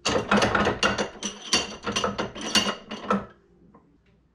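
Steel tape measure blade being pulled out, a rapid rattling clatter of many quick clicks that stops after about three seconds.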